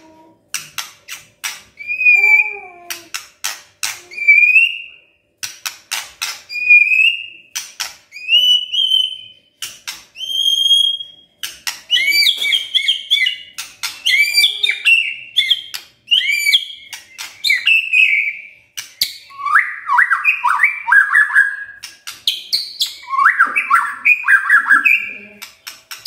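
White-rumped shama calling: runs of sharp, crackling clicks (the 'kretekan' call) broken by short rising whistles about every two seconds. In the second half these give way to rapid warbled trills.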